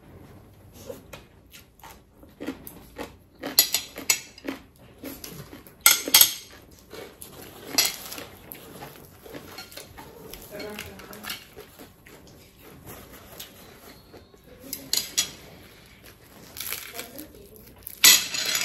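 Eating at the table: bites of crisp fried tiny shrimp crunching, mixed with clicks of chopsticks and fingers on plates and bowls, in scattered short bursts that are loudest about six seconds in and near the end.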